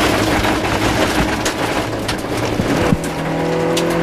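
Rover 214 rally car's 1.4-litre K-series engine driving hard on a gravel stage, with loose stones clattering against the underbody and wheel arches. About three seconds in there is a gear change, after which the engine pulls up in pitch again.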